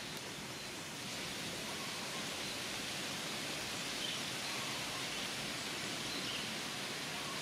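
Steady outdoor background hiss, with a few faint, short high chirps.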